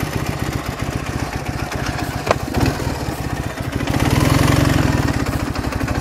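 Ural motorcycle's air-cooled flat-twin engine idling steadily, swelling a little louder about four seconds in before settling back. A single short click about two seconds in.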